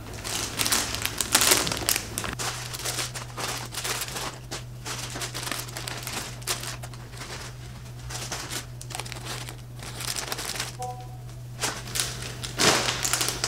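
Plastic packaging crinkling and rustling in irregular handfuls as bagged craft kits with cardboard headers are handled and pushed into foil-like gift baskets.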